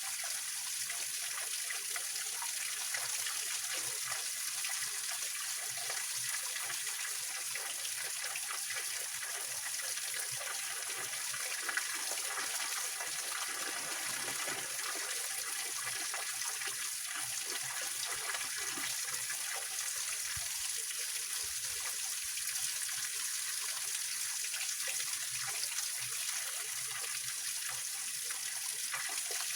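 Small mountain-spring waterfall, water splashing and flowing steadily over rocks.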